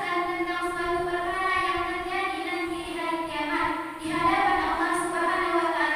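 A young girl's voice singing through a handheld microphone in long held, melodic notes, in two phrases with a short break about four seconds in.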